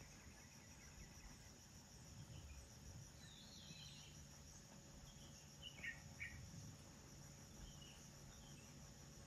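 Faint, steady high-pitched trilling of jungle insects, with a few short chirps around the middle.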